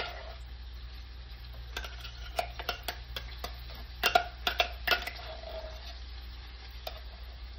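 Canned corned beef hash sizzling in a stainless steel frying pan, with a steady low hum underneath. A metal utensil clicks and scrapes against the can and pan about eight times, mostly in the middle of the stretch.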